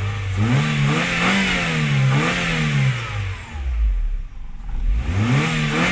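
Opel Astra G engine being revved in blips: its note climbs and wavers for about three seconds, drops back toward idle, then climbs again near the end. The engine is running freely after a crank-but-no-start fault.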